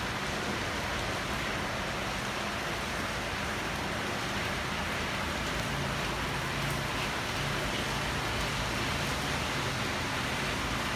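Heavy rain falling steadily, an even hiss of rain on leaves, roofs and a flooded street. A faint low hum joins about halfway through.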